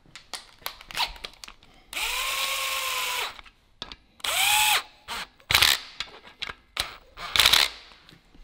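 Cordless power driver spinning bolts in: two bursts of motor whine that rise in pitch, hold, and wind down, the first about a second and a half long and the second shorter, followed by sharp clicks and knocks of tool and parts. The bolts are being run down to snug before being drawn up evenly.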